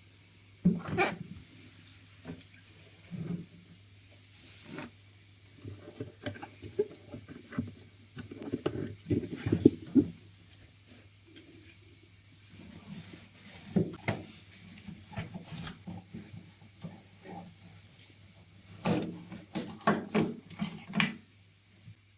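Irregular plastic clicks, knocks and rubbing from hands working in the base of a washing machine around its water-level safety float, with louder clusters of knocks near the start, in the middle and near the end.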